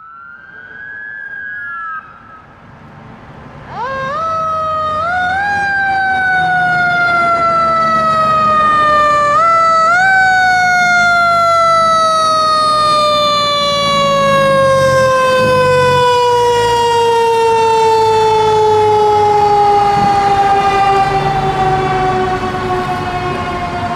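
Fire tanker truck's mechanical siren, wound up sharply twice, about four and ten seconds in, then coasting slowly down in pitch over the low running of the truck's engine. A fainter siren rises and falls briefly at the start.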